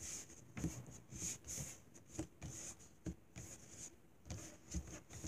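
Hands squeezing, pressing and crumbling kinetic sand on a tabletop: a run of irregular soft crunchy rustles with light pats, about a dozen in all.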